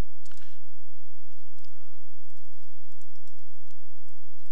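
Computer keyboard keys tapped in a quick run of light clicks as a password is typed, over a steady low hum.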